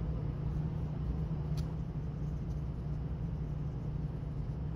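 Steady low background hum, with one faint click about a second and a half in.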